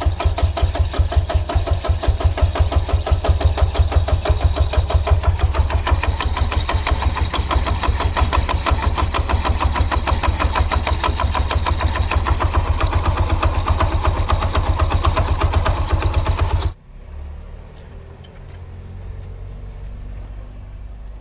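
Scooter engine running with a fast, even pulsing beat, then switched off suddenly about 17 seconds in.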